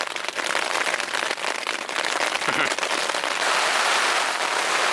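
Heavy rain falling steadily, a dense patter of many drops striking a surface.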